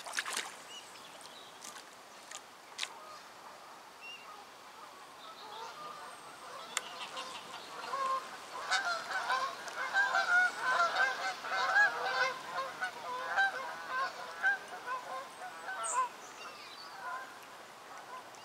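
Flock of geese honking, many short calls overlapping. They build up about six seconds in, are loudest in the middle and thin out near the end, after a couple of sharp clicks in the first few seconds.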